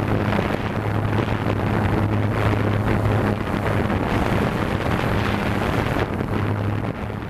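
Quadcopter drone's propellers running steadily, heard from the camera on board: a steady low hum under a rush of wind noise, dropping off just before the end.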